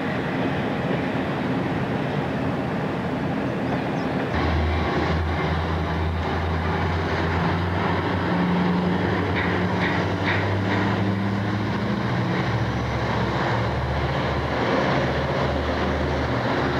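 Conrail diesel freight locomotives approaching and passing at low speed as they come out of a slow order, their engines drumming steadily from about four seconds in over the rumble of the train.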